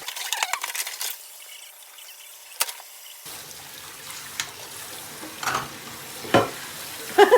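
Dishes being washed at a kitchen sink: water running from the tap, with a clatter of dishes in the first second and a few separate clinks after.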